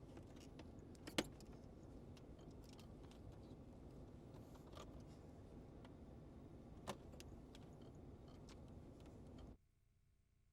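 Light clinks and rattles of objects being handled, with a sharper click about a second in and another near seven seconds, over a steady background hiss; the sound cuts off shortly before the end.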